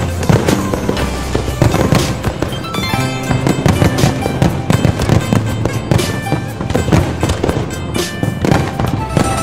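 Aerial fireworks bursting in a rapid, dense series of bangs, with music playing underneath.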